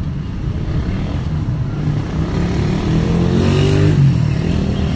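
Road traffic with a motorcycle passing close by, its engine rising in pitch as it speeds up and loudest about three and a half seconds in, over a steady low hum of traffic.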